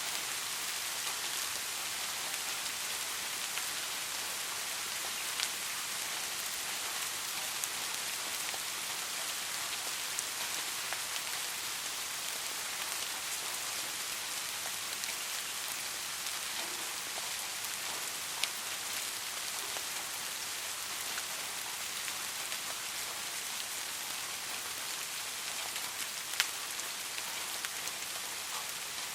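Steady rain falling, a dense even hiss with occasional single drops ticking a little louder.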